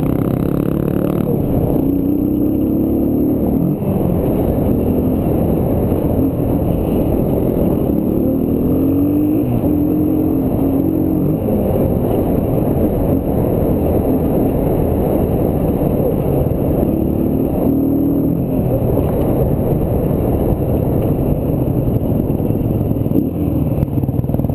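Dirt bike engine running hard on the move, its pitch climbing under throttle and dropping back again and again as the rider works through the gears, over a constant rush of wind and noise from the ride.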